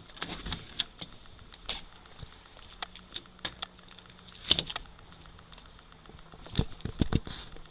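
Irregular clicks and knocks, a few at a time and unevenly spaced, the loudest cluster about two-thirds of the way in, over a faint steady high hiss.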